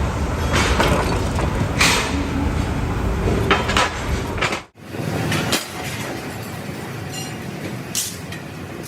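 Metalworking shop noise: a steady machinery rumble with repeated sharp metal clanks. After a sudden cut about halfway through it gives way to a quieter steady machine noise with a few clicks.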